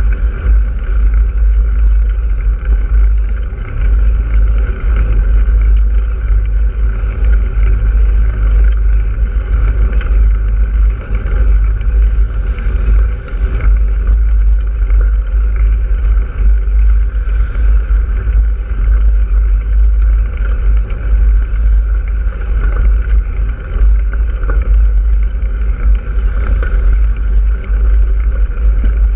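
Wind buffeting the microphone of a moving ride camera, a loud, fluctuating low rumble, over steady road and travel noise.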